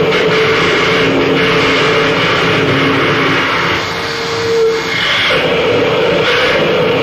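Harsh noise music: a loud, dense, steady roar with a couple of held droning tones underneath, dipping briefly about four seconds in.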